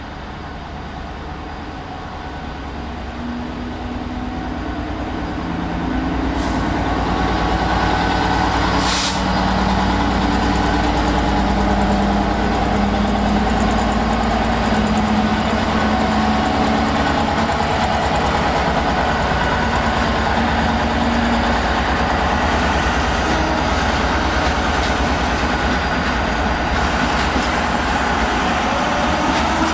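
Captrain Class 66 (BR 266) diesel locomotive, with its two-stroke V12 engine, running under power as it hauls a container freight train past. The engine drone grows louder over the first six seconds and then holds steady. There is one sharp knock about nine seconds in.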